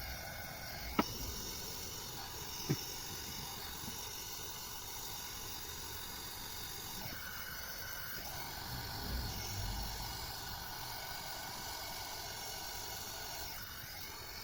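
Gas brazing torch hissing steadily while refrigerator tubing is brazed after a compressor and capillary-tube replacement. Two sharp clicks come within the first three seconds, and a low rumble comes about two thirds of the way through.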